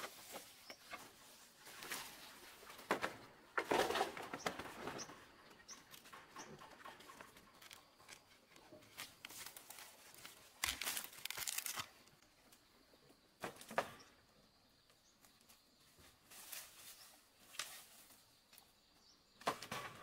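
Dry leaves and plant stalks rustling and tearing in irregular bursts as plants are handled by hand.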